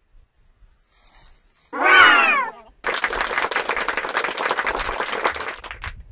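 A short, loud wavering cry, then about three seconds of applause that cuts off abruptly.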